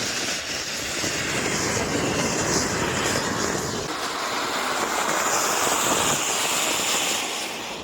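Diwali firecracker burning with a loud, steady hissing rush that fades near the end.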